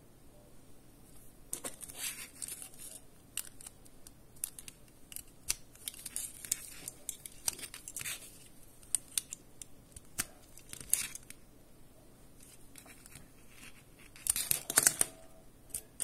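Handling noise from a plastic USB card reader and a microSD card: scattered small clicks and taps with a few brief scraping, rustling stretches, the loudest of them near the end.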